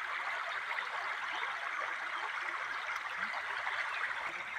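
Flowing water rushing steadily, as of a stream or waterfall.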